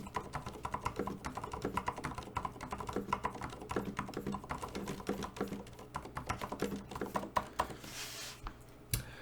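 Typing on a LightSalt Kurve mechanical keyboard with Frozen Silent switches: a quick, steady run of soft, muted key clicks, thinning out near the end.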